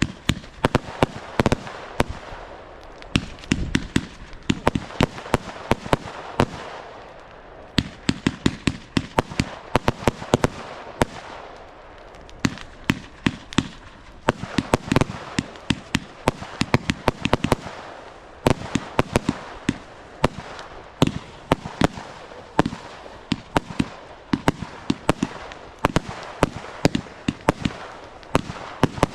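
Fireworks going off in rapid runs of sharp bangs and crackles, many a second, with brief lulls between volleys.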